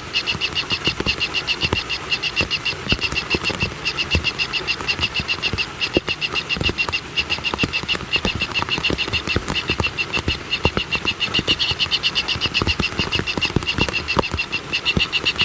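A calling animal chorus: a steady, fast pulsing call, about seven pulses a second, repeated without pause, with scattered low knocks underneath.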